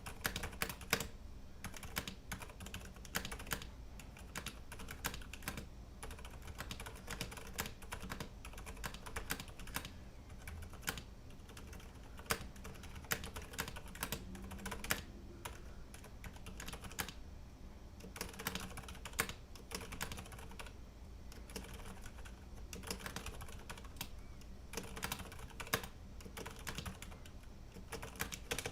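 Typing on a full-size mechanical keyboard with Cherry MX Silent Red switches: quick runs of muted, irregular key strokes. The spacebar is quite loud, its stabilizers smashing into the board, though overall the typing is quite quiet.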